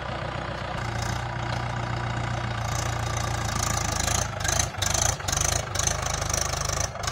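Mahindra 575 tractor's diesel engine running under heavy load as the tractor, bogged in mud on cage wheels, strains to pull free. The engine note rises about a second in, and the sound drops out briefly a few times after the middle.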